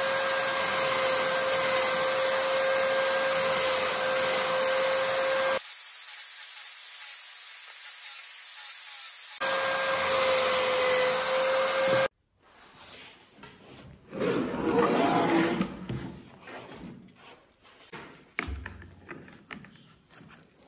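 Homemade electric sander, a motor-driven drill chuck carrying a hook-and-loop sanding disc, running steadily with a steady whine while CNC-cut board edges are pressed against it to sand off the holding tabs. It stops abruptly about twelve seconds in, followed by quieter handling, rubbing and a few knocks.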